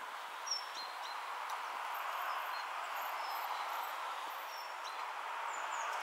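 Steady outdoor background noise with a few faint, short, high bird chirps scattered through it.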